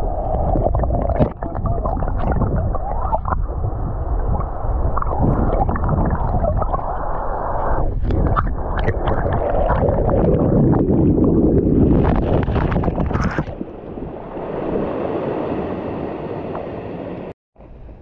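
Stream water rushing and gurgling, heard with the camera held underwater, with scattered short clicks and knocks throughout. It eases off for the last few seconds and then cuts out suddenly.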